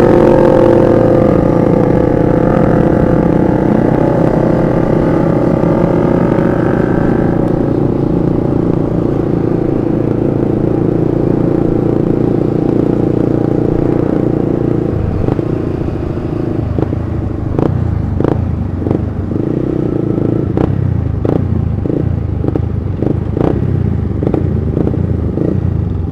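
Motorcycle engine heard from the rider's own upgraded Yamaha Vixion, a single-cylinder, running steadily while riding in a group of motorcycles. The engine note changes about fifteen seconds in, and a series of short sharp clicks follows in the second half.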